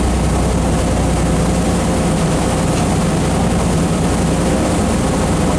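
Steady low mechanical drone of a party fishing boat's onboard machinery, with a constant hiss of wind and water over it.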